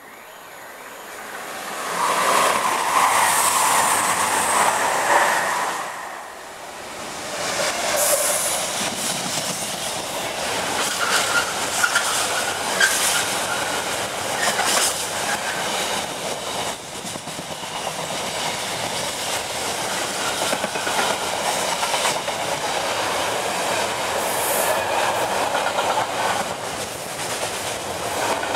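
A Freightliner Class 66 diesel locomotive hauling a container freight train passes close by. The locomotive gets loud about two seconds in, then a long rake of container wagons runs past with a steady rhythmic clickety-clack of wheels over the rail joints.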